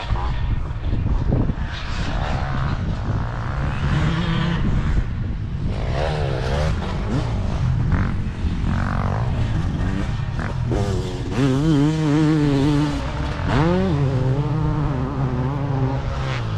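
Motocross bike engines revving hard out on the track, their pitch climbing and dropping again and again as the throttle opens and closes and the gears change.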